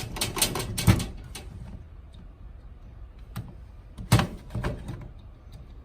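Clicks and scrapes of spade wire connectors being pulled off and pushed onto the terminals of a replacement dryer timer switch. There is a quick run of clicks at the start and one sharp click about four seconds in.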